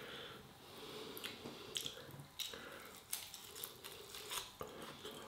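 A person biting and chewing meat off a Chinese-style pork spare rib: faint eating sounds with a scattering of soft clicks.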